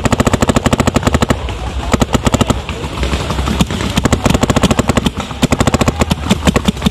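Paintball markers firing rapid strings of shots, several long bursts with short pauses between them.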